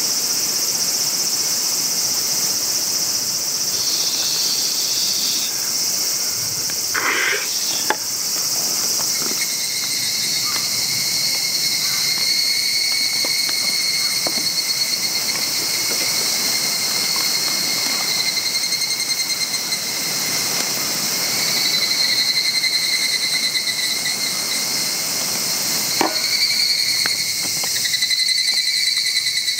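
Insects chirring steadily, with a high, even tone joining in about ten seconds in. A few light clicks and knocks come just before eight seconds and again about twenty-six seconds in.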